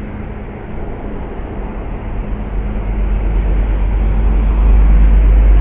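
Heavy truck's engine rumbling as it passes close by, growing steadily louder from about halfway through.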